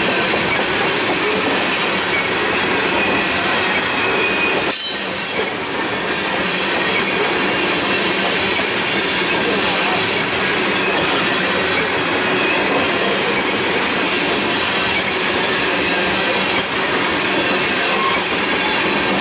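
Freight train tank cars rolling past close by: a steady rumble and rush of steel wheels on rail, with a faint wheel squeal on the curve. The sound dips briefly about five seconds in.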